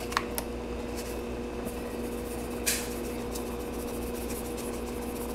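Steady low electrical hum in a kitchen, with a couple of faint clicks near the start and one short hiss about halfway through as salt is poured into the simmering fish broth.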